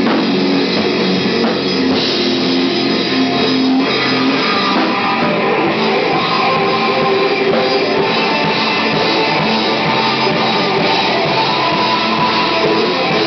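Stoner rock band playing live: electric guitar and drum kit, loud and continuous.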